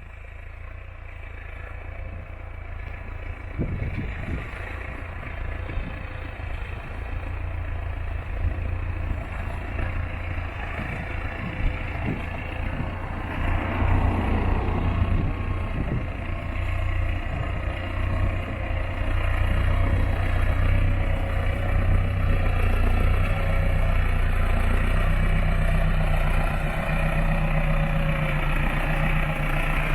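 Massey Ferguson 5470 tractor's diesel engine working steadily under load while pulling a plough. It grows louder over the first fourteen seconds or so as it comes closer, then stays at a steady level.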